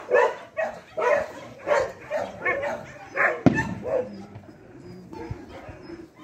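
A dog barking in a run of short barks, about one or two a second, through the first half, then fewer and quieter ones. A single sharp knock comes about three and a half seconds in.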